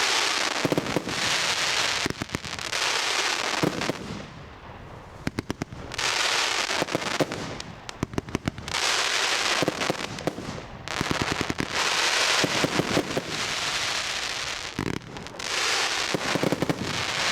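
Revolver 80-shot firework barrage cake firing: rapid volleys of sharp bangs alternate with long stretches of dense crackling from the bursting shells, several times over.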